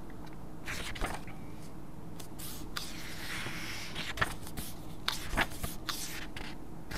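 Paper rustling and light handling noises as the pages of a book are leafed through, with scattered small clicks and taps and one longer soft rustle near the middle.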